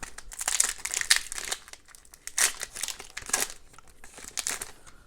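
A trading card pack's foil wrapper being torn open and crinkled, in several crackly bursts.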